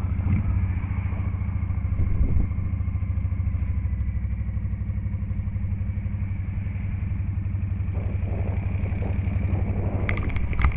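Cruiser motorcycle engine running steadily at low road speed, heard from the rider's helmet camera, with a few sharp clicks starting near the end.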